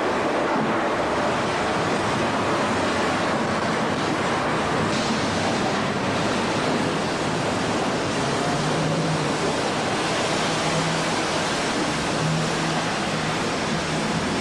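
Loud, steady rushing noise of a colliery pit cage moving in its shaft. A low hum comes and goes in the second half.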